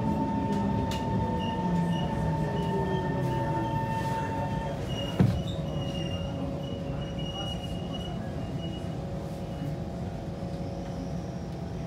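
Kawasaki C151 metro train running on the track, heard from inside the car: steady wheel and motor noise with held whining tones and a faint wheel squeal. A single sharp knock comes about five seconds in, as one of the tones drops out.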